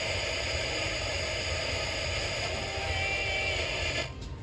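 Sony ICF-C492 clock radio's speaker giving out steady static hiss while tuned between stations during a band scan, with faint tones coming through about three seconds in. Near the end the hiss drops away sharply.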